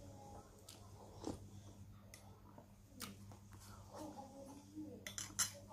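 A man eating chicken soup and rice from a spoon: chewing and sipping mouth sounds with a few sharp clicks, the loudest cluster near the end, over a steady low hum.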